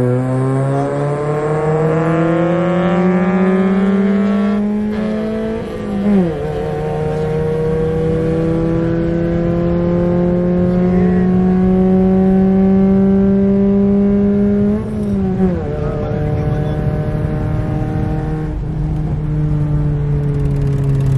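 Car engine heard from inside the cabin, pulling hard at full throttle in a roll race. Its pitch climbs steadily through each gear, drops sharply at upshifts about six and fifteen seconds in, and falls away as the throttle is lifted at the very end.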